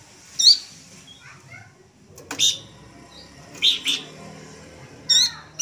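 Young Horsfield's babbler (pelanduk semak, cingcoho) calling: about five short, high chirps that fall in pitch, spaced irregularly, two of them in quick succession near the middle.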